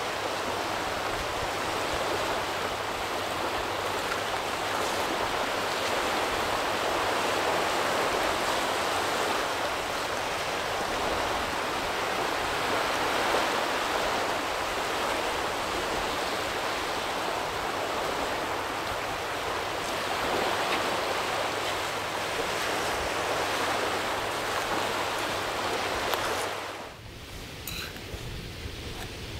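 Sea waves washing on the shore, a steady rush that drops away suddenly about 27 seconds in.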